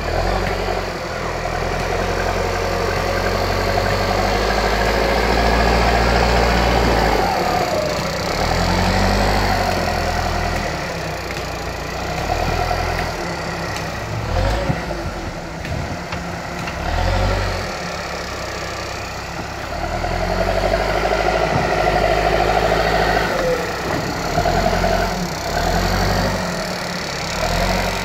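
Diesel engine of a bulldozer working, its pitch and loudness rising and falling repeatedly as it takes and sheds load.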